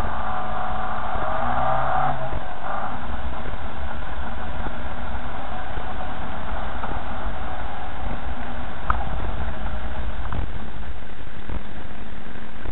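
Car driving slowly over a muddy, rutted dirt track: a steady low rumble of engine and running gear, with a higher whine of several tones for about the first two seconds.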